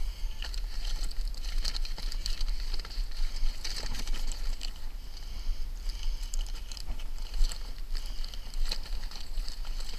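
Crinkling and rustling of self-adhesive ice and water shield membrane sheets being handled on roof boards, many short crackles close together, over a steady low rumble.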